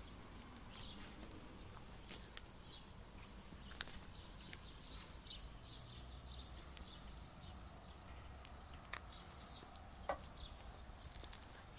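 Quiet outdoor ambience: scattered short, high bird chirps and a few sharp clicks of footsteps over a low rumble of wind noise.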